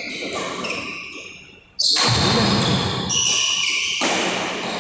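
Badminton rackets striking a shuttlecock during a rally: two sharp hits, about two seconds in and near the end, each trailing off in a long echo. The second hit is a jump smash.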